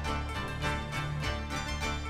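Background music with quick, evenly spaced notes over a steady bass line.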